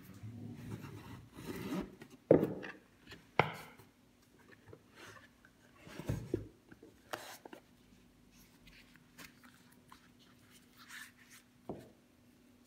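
Hands opening a cardboard watch box: rubbing and sliding of the box parts, two sharp knocks a little over two and three seconds in, more knocks around six seconds, then quieter handling with a few light clicks as the watch is lifted out.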